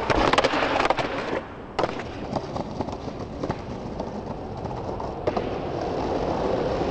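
Skateboard trick off a concrete ledge: a loud clatter of board and wheels with sharp clacks for about the first second and a half, then quieter wheels rolling over brick pavers with scattered clicks as the skater rolls away.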